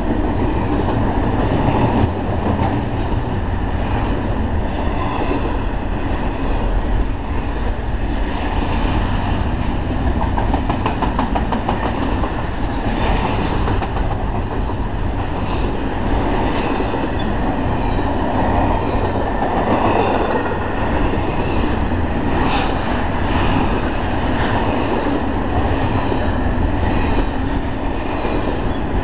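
BNSF double-stack intermodal freight train passing close by: a steady, loud rumble and clatter of steel wheels on the rails as the loaded well cars roll past.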